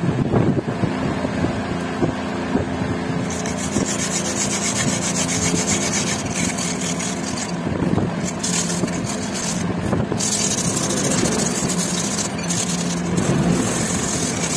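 Steel hatchet head scrubbed back and forth with wet sand against a concrete floor to scour off rust: a continuous gritty rubbing, with a steady low hum underneath.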